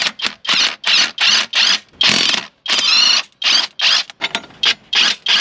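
Ratchet wrench worked back and forth on a bolt, giving a dozen or so short rasping clicks with brief pauses between strokes.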